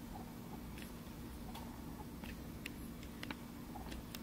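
Faint, irregular small clicks, about six over a few seconds, from loose mechanical keyboard switches being handled, over a low steady hum of room tone.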